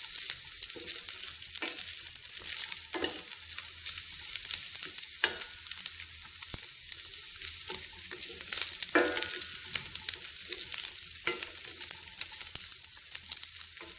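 Oil sizzling steadily in a pan as boiled, shredded chicken and chopped vegetables are stir-fried. A spatula scrapes and knocks against the pan irregularly, every second or two.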